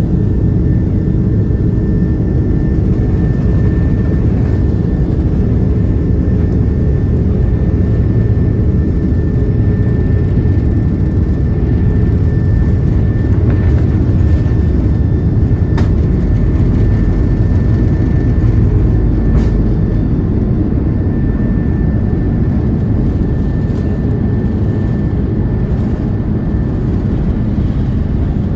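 Steady low rumble of a vehicle in motion, with a faint steady high whine above it and a few light ticks.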